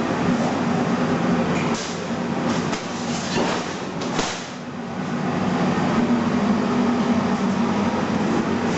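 CNC plasma cutter cutting stainless steel sheet: a steady hiss over a low hum, with a few short crackles and a brief drop in level about four and a half seconds in.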